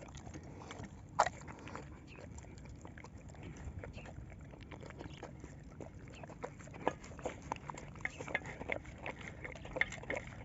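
Chewing and crunching food: one sharp crunch about a second in, then a steady run of quick, crisp crunches through the second half.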